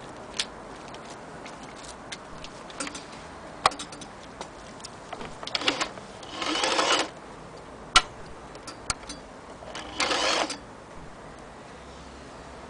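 Frister & Rossmann Model 503 electric sewing machine run in two short bursts of under a second each, one a little past the middle and one near the three-quarter mark. Scattered sharp clicks and taps come between them.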